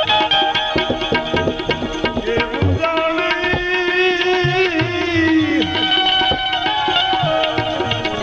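Devotional bhajan music: tabla strokes in a steady rhythm under sustained melodic notes, with a few sliding pitches near the middle, between sung lines.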